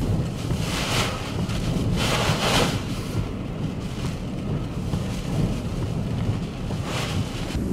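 Nor'easter gale buffeting the microphone with a heavy low rumble, over crashing surf. Hissing surges of waves and spray come about a second in, for a longer stretch around two seconds in, and again near the end.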